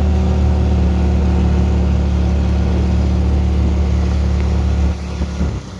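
An engine running steadily with a deep, even hum, then shut off about five seconds in.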